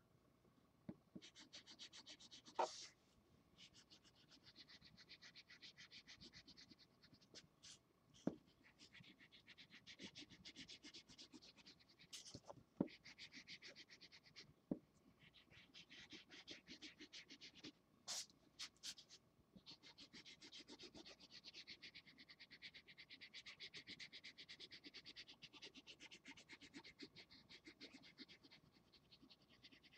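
Felt-tip marker scratching on paper in rapid back-and-forth strokes, faint, in runs of a few seconds with short pauses between them, and a few sharp taps.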